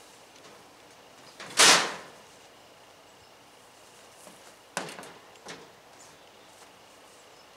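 A clothes dryer being handled on a hand truck: one loud, short clatter about one and a half seconds in, then two lighter knocks just under a second apart near the five-second mark.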